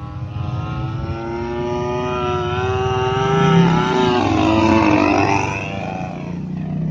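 A radio-controlled model airplane's 20cc engine running at high throttle in flight, a steady buzzing whine. It grows louder toward the middle, and its pitch falls about four to five seconds in as the plane passes.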